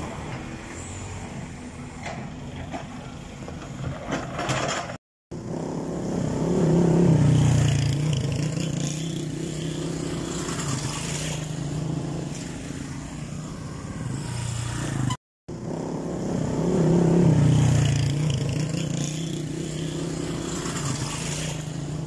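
Motor-vehicle engines in slow, queued traffic on a dirt road, with one engine swelling louder for a couple of seconds, twice. The sound drops out briefly twice.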